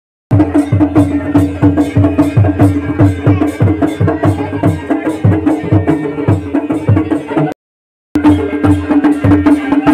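Traditional Kumaoni wedding-procession band playing: drums beating fast and steady, with a held droning tone over them. The sound cuts out briefly twice.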